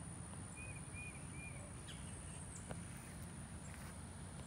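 Outdoor ambience: a steady high insect trill, with a bird chirping three short times in the first second and a half over a low background rumble.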